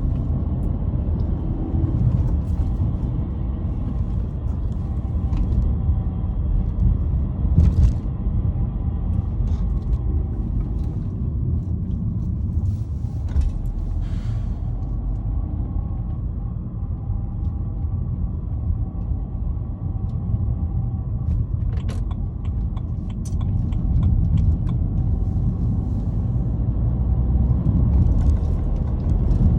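BMW E90 318i four-cylinder petrol engine and drivetrain running under way in gear: a steady low rumble with scattered short metallic clicks and rattles. The owner describes the noise as a metal rattle and 'metal balls clicking', heard at low revs only when accelerating in gear, and fears a gearbox fault.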